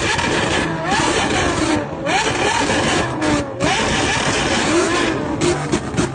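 A car engine revving over and over: its pitch climbs sharply and then falls back, about once a second, over a loud rushing noise.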